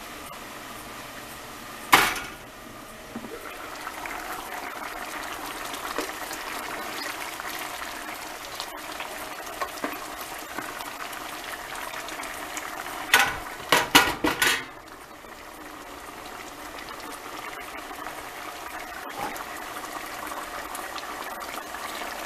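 Pot of lima beans simmering with a bubbling sound. A metal pot lid clanks once about two seconds in, and a little past the middle a spoon knocks against the pot several times in quick succession.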